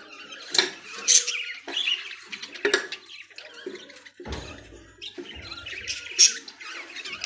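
Budgerigars chirping and chattering, many short high calls overlapping, with a few sharp knocks and a brief low rumble about four seconds in.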